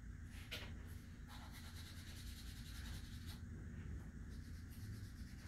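Pencil scratching on paper in quick, repeated strokes: cross-hatching to darken the shading, faint.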